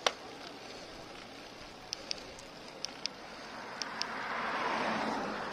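Steady wind and road noise on a slow bicycle ride, with a few short high chirps in the middle. A broader hiss swells and fades again about four to five seconds in.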